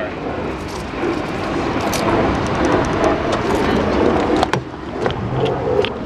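Street noise with a car going by, over a low wind and handling rumble on a hand-held camera's microphone, and a few sharp clicks as a car door is opened and the driver climbs in.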